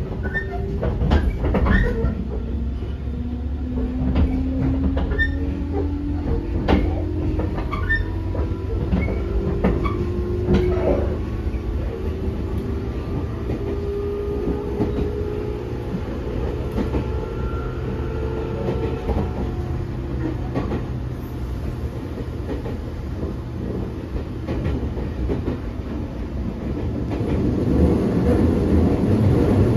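Cabin running sound of a JR 205 series 3100 subseries electric train: the traction motor and gear whine rises slowly in pitch as the train gathers speed, over a steady low rumble with scattered rail-joint clacks. The whine levels off after about twenty seconds, and the rumble grows louder near the end.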